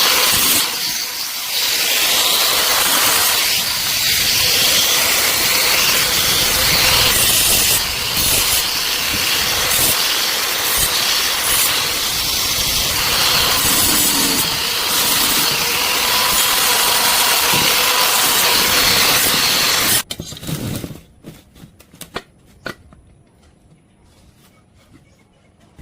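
Arc welding: a steady crackling hiss from the welding arc that runs for about twenty seconds and then cuts off suddenly as the arc is broken, followed by a few faint scattered clicks.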